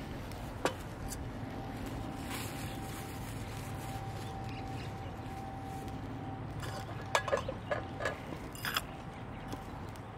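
Fire burning in a large CAGEDBIRD wood stove: a steady low rumble with occasional sharp crackles, one early and a quick cluster of them about seven to nine seconds in.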